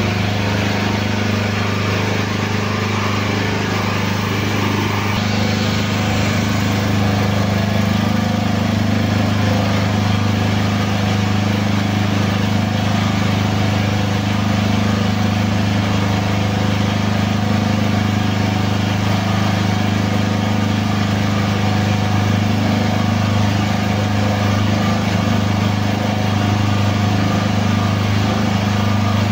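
Hydraulic power unit of a forklift solid-tyre press running steadily as the ram pushes down on a pusher cylinder to press the rim out of a 700-12 solid tyre. A loud, even, low hum that stays unchanged throughout.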